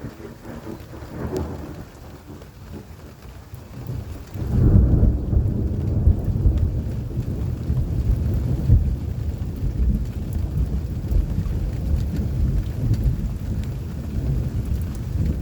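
Summer rain falling steadily, with a low grumble of thunder about a second in. A loud, deep roll of thunder breaks about four and a half seconds in and keeps rumbling.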